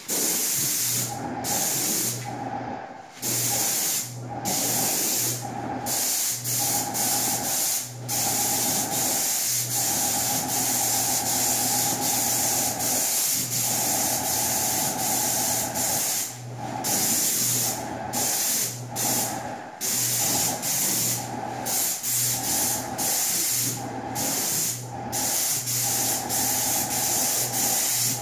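Paint spray gun hissing as paint is sprayed onto doors, switching on and off in short runs as the trigger is pulled and released for each pass.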